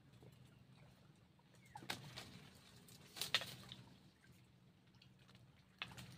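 Small hooked fish splashing at the water's surface as it is pulled up on a pole line: three short splashy bursts, about two, three and six seconds in, the middle one the loudest.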